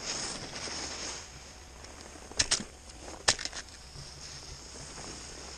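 Skis sliding and carving on groomed snow, with a steady rush of wind on the microphone. Two clusters of sharp clicks or knocks come in the middle, the loudest sounds here.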